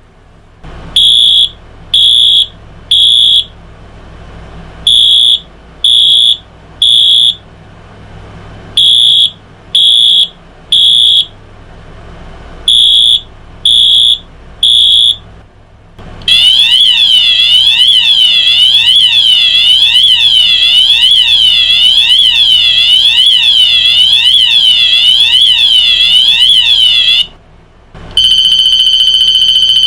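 Wheelock AMT multitone electronic fire alarm horn stepping through three tones. First a temporal-three pattern: three short high-pitched blasts, repeated four times with pauses. Then a continuous fast rising-and-falling sweep for about eleven seconds, and after a brief break, a steady continuous tone near the end.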